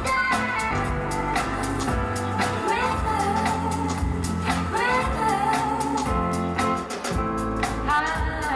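A song playing: a sung melody with wavering held notes over a steady drum beat and bass.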